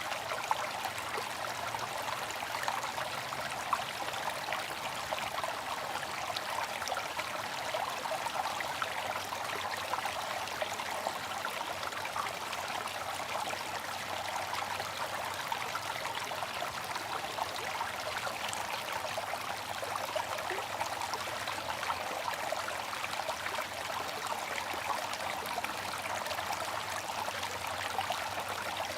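Bamboo water fountain: water trickling steadily from the spout into the basin.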